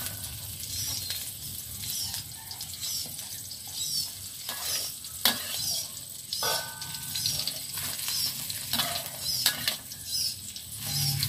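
Chopped ginger, garlic and shallots sizzling in hot oil in a steel wok, being sautéed until fragrant, while a metal spatula scrapes and stirs them in repeated strokes. One sharp clink about five seconds in.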